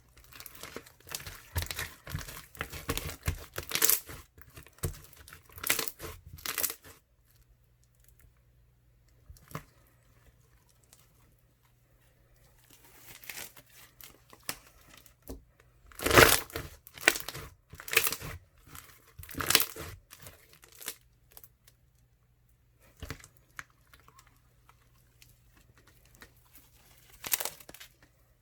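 Crunchy slime made with clear glue being squeezed and worked by hand, giving off crackling and popping of bubbles and crunchy bits. It comes in several spells of dense crackling with quieter stretches between.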